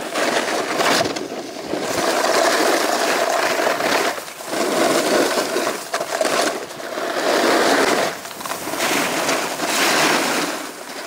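Snowboard sliding and carving on groomed snow: a loud scraping hiss that swells through each turn and eases between them, about every two seconds.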